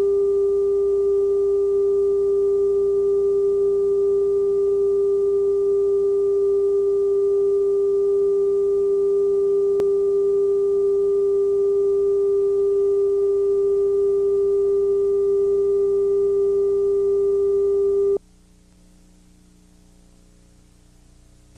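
Steady television test-pattern tone, one unwavering pitch with faint overtones. It cuts off suddenly about 18 seconds in, leaving only a faint low hum.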